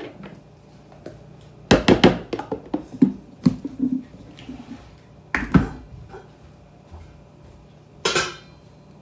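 Off-camera kitchen clatter: dishes and containers knocking and clinking as they are handled and put away, in three clusters about 2, 3 to 4 and 5.5 seconds in, with a brief rushing noise near the end.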